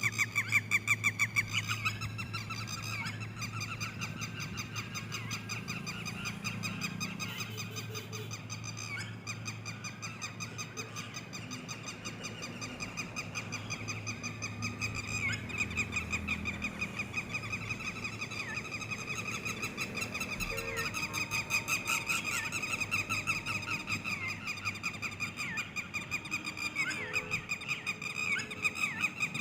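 Red-wattled lapwing calling: a rapid, unbroken series of short high notes, several each second, with a low steady hum underneath through the first half.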